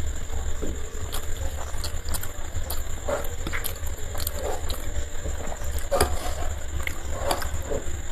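Close-up eating sounds: chewing, mouth smacks and soft clicks as pieces of luchi are torn and eaten, scattered every second or so over a steady low hum.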